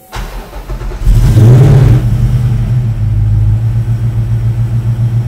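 Ford Coyote 5.0-litre DOHC V8 started up on its newly installed Holley Terminator X Max ECU. The starter cranks for about a second, then the engine catches, flares up loudly and settles into a steady idle.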